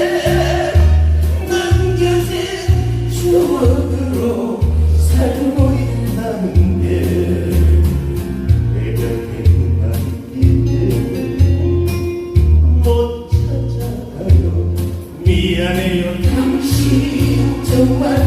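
A singer performing a song over a backing track with a steady, heavy bass beat.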